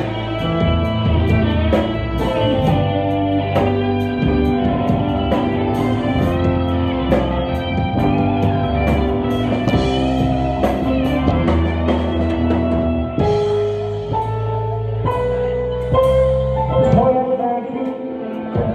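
Live band playing a song: electronic keyboard, guitar and drum kit with a steady beat. The low bass drops out briefly near the end.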